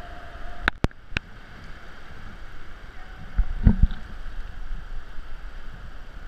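Water sloshing and lapping around a paddled sea kayak inside a sea cave. There are three sharp knocks about a second in and a couple of dull thumps midway through.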